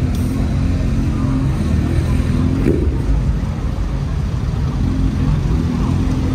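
Car engines running in slow cruising traffic: a steady, low engine note that holds without a clear rev.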